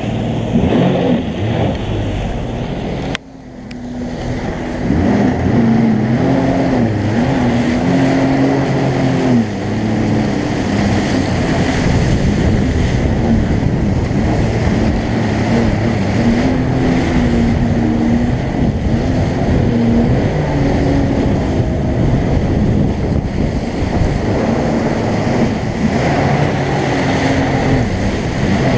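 Jet ski engine running at speed, its pitch rising and falling with the throttle, over rushing water spray and wind buffeting the microphone. About three seconds in the sound drops away sharply, then builds back up over the next couple of seconds.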